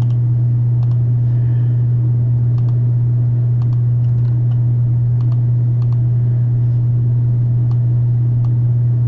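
A steady low hum, with faint, scattered clicks of a computer keyboard and mouse.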